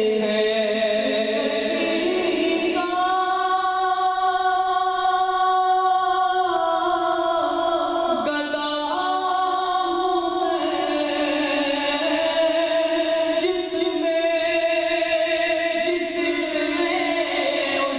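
Unaccompanied devotional singing of a naat through a microphone and PA, with long held notes that slide between pitches.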